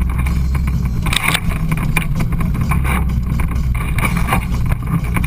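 Side-by-side UTV engine running steadily as it drives along a trail, with short knocks and rattles over the rough ground, a louder one about a second in.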